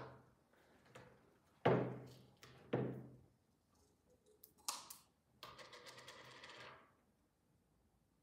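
Two sharp knocks of utensils set down on a wooden tabletop, then a click and a rasping scrape of about a second and a half as the screw lid of a honey jar is opened.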